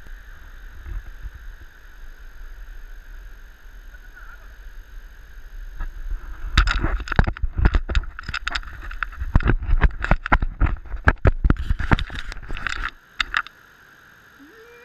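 Handling noise from a hand-held action camera: a rapid run of knocks, scrapes and rubs on the camera and its housing for about six seconds, starting after a steady rushing background and stopping suddenly near the end.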